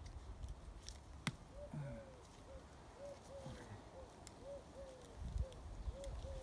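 A dove cooing in the background, repeating a three-note coo-COO-coo phrase about every second and a half from a second or so in. There is one sharp click just before the cooing starts, with light handling noise.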